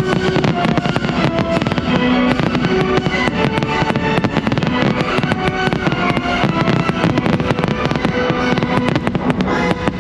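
Fireworks crackling and popping in rapid, dense bursts over loud orchestral show music.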